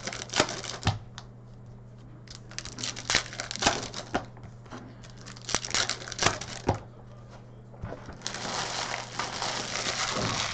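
Plastic-foil trading card pack wrappers crinkling and tearing as hobby-box hockey card packs are ripped open and handled, in several short bursts of crackling. A denser, steadier rustle starts about eight seconds in.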